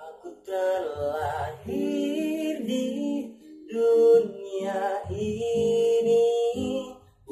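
A man singing long held notes with a slight waver, with guitar accompaniment underneath.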